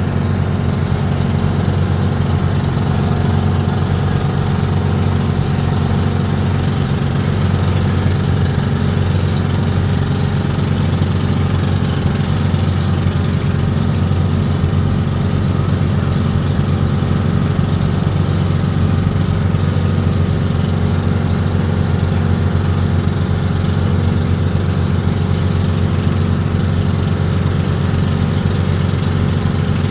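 Outrigger fishing boat's engine running steadily under way, a loud, even low drone with a fast pulse.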